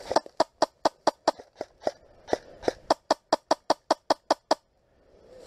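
HPA-powered airsoft M4 rifle (Wolverine Inferno Gen I engine) firing a rapid string of about two dozen sharp shots, roughly five a second, that stops about four and a half seconds in.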